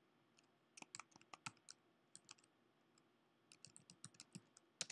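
Faint clicks of a computer keyboard being typed on, coming in irregular runs of keystrokes.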